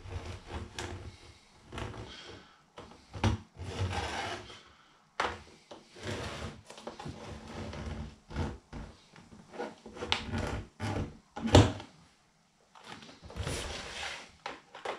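Irregular scraping and rubbing strokes on the rim of a thick plastic tub as a cutting line is scribed and scored around its top, with a few knocks from handling; the sharpest knock comes about three-quarters of the way through.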